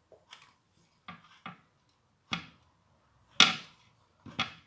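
Irregular knocks and clicks from handling a stick vacuum cleaner's motor: about seven separate hard taps, the loudest about three and a half seconds in.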